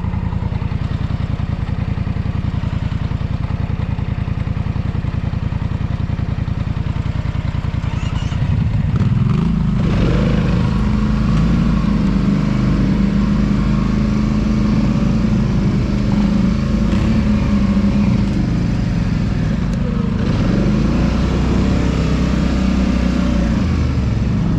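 ATV engine running at low revs, then revving up about eight seconds in and running on steadily at higher revs.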